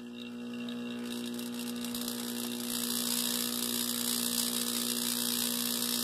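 Salvaged air-conditioner compressor running as a vacuum pump, a steady electric hum, pulling vacuum on a jar of water that is just starting to boil. A hiss builds up over the first couple of seconds and then holds.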